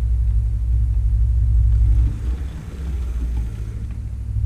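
Steady low electrical hum from the model railroad layout while an HO-scale steam locomotive rolls slowly off the roundhouse track onto the turntable bridge. The hum drops away for a moment about two seconds in, then returns.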